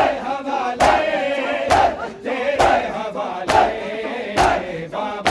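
Crowd of Shia mourners chanting together during a noha, with the loud, even strokes of hands beating on chests (matam) keeping time about once a second.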